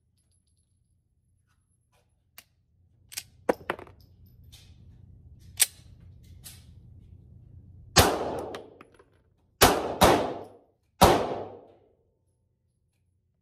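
Four shots from a 9mm pistol, the second and third close together, each followed by a short echo, after a few lighter clicks and knocks of handling.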